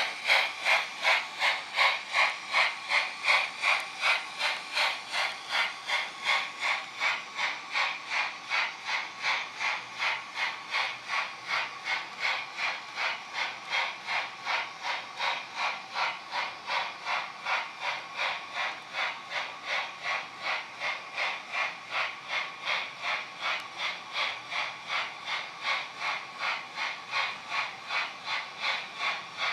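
Steam-locomotive exhaust chuffs from the ESU LokSound sound decoder of a model REE Modeles 231 PLM Pacific, played through the locomotive's small onboard speaker: an even beat of a little over two chuffs a second, growing slightly quieter over the first several seconds.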